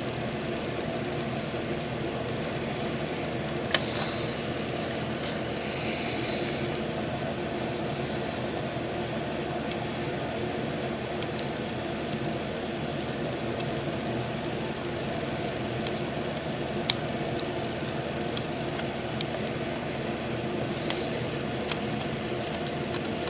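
Steady mechanical hum, like a small fan or motor running, with a few faint ticks and a brief soft hiss about four to six seconds in.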